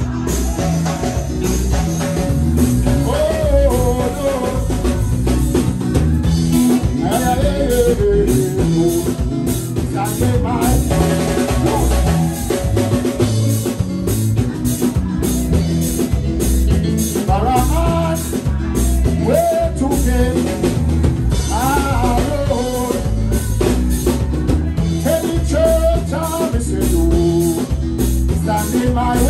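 Gospel worship music from a band with a drum kit keeping a steady beat under a heavy low end. A melody line bends and slides over the top throughout.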